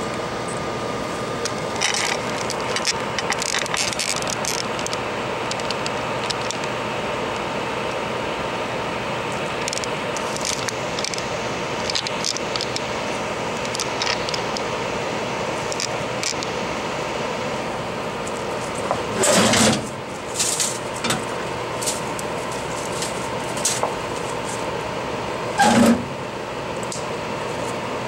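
Steady fan-like hiss with a faint hum from workbench equipment, over scattered small clicks and taps of a gloved hand handling an iPad mini. Two louder brief knocks or scrapes come near the two-thirds mark and again near the end.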